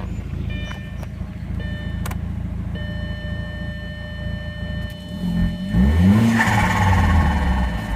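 Turbocharged car engine idling steadily, then revved in a few quick blips about five seconds in, the pitch rising and falling, with loud intake noise from an open cone air filter.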